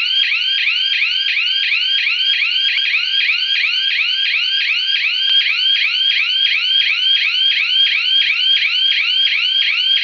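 Small electronic alarm siren sounding a fast, high-pitched repeating whoop, about three rising sweeps a second, with no break. It is the flood alert for the water having reached the full level.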